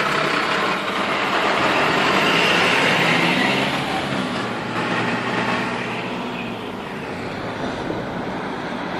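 A train passing along the line. The sound builds to its loudest about two to three seconds in, then slowly fades as the train moves away.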